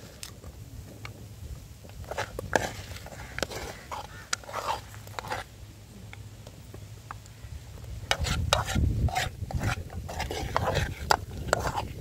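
A big spoon stirring and scraping a thick peanut-and-sugar mixture in a cooking pot, in repeated scrapes and knocks. A low rumble grows louder about eight seconds in.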